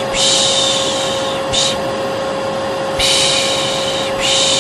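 A hair dryer running steadily with a constant hum, under a voice shushing 'shhh' in long repeated strokes with short breaks, the rhythmic white-noise shushing used to calm a colicky baby. One shush ends at about a second and a half; after a pause of about a second the shushing resumes.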